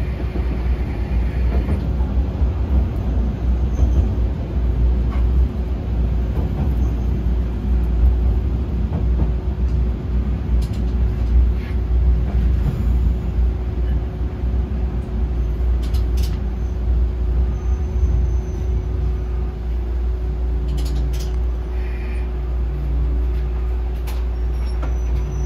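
YR-880 diesel railcar running, heard from inside the driver's cab: a steady engine and wheel rumble with a few sharp clacks over rail joints. About two-thirds of the way through it gets a little quieter and the engine note changes as the railcar eases off approaching the station.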